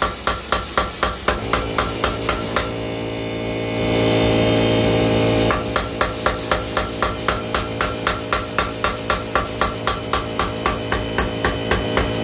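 Homemade Bulldog 15 mechanical power hammer pounding steel at a fast, even rate of about four to five blows a second. About three seconds in the blows stop for a couple of seconds and only a steady hum is heard, then the hammering starts again.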